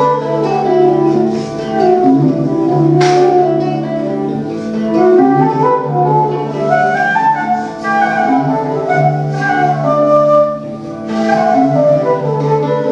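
Instrumental medieval-style folk music played live, a flute carrying the melody over a steady low drone. There are two sharp percussive hits, one about three seconds in and one near the end.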